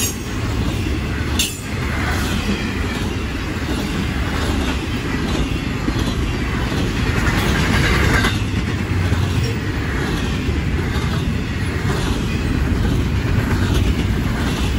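Intermodal freight train's double-stack container well cars rolling past at close range: a steady rumble of steel wheels on rail with repeated clicks, and a sharper clank about a second and a half in.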